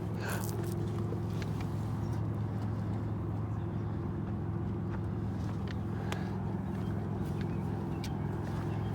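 Steady low engine drone of a distant motor vehicle, holding one pitch throughout, with a few faint clicks over it.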